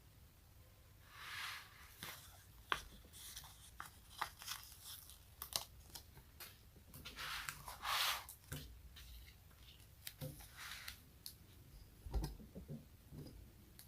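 Close-miked sticky surfaces being peeled apart: an irregular run of sharp crackling ticks with a few longer tearing swishes, the loudest about eight seconds in.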